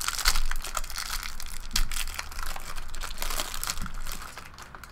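Wrapper crinkling and a stack of trading cards being handled as a brick of cards is unwrapped, a dense run of small crackles and clicks that dies down near the end.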